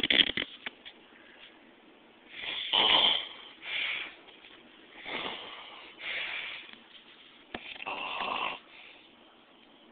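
A sleeping man snoring loudly: a rasping snore on the breaths, about five or six times, the loudest about three seconds in.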